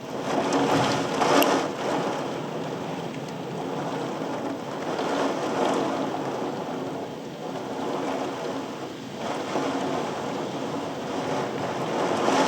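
Thunderstorm gust front: gusty wind rushing, swelling and easing in several waves.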